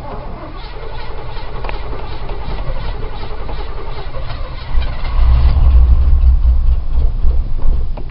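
A flooded engine in an older car cranking on the starter with a steady, even beat while the gas pedal is pumped. About five seconds in, the engine catches and runs loudly with a deep rumble, then eases off near the end.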